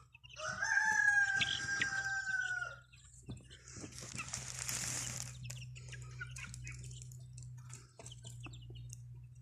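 A rooster crows once, a single held call of about two and a half seconds starting half a second in, followed a second later by a short rustling noise.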